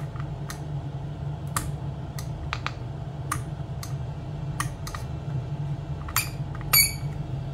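Scattered small clicks and taps as a circuit board and its wiring are pressed and fitted into an Armand Prospector metal detector's control box, over a steady low hum. The two sharpest clicks come near the end.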